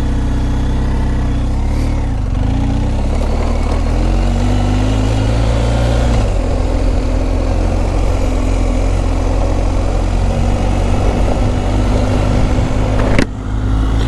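BMW GS boxer-twin motorcycle engine running under way on the road, with wind rush over the microphone. The engine note climbs for a few seconds, then drops about six seconds in, as at a gear change, and pulls on steadily.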